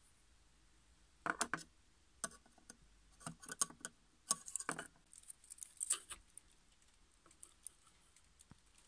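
Light, irregular clicks and crinkles of handwork on a gold-foil tweeter: a small screwdriver and fingers folding and pressing its thin gold foil over a steel knife blade. The clicks come in clusters for the first two-thirds, then thin out to a few faint ticks.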